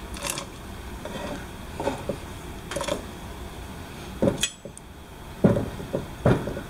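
Diced sweet potato pieces dropped by hand into a saucepan of water: about ten short, irregular splashes and knocks against the pan.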